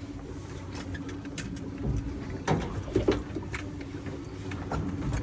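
Steady low hum of a boat's motor, with scattered clicks and a few knocks from handling on deck about two and a half to three seconds in.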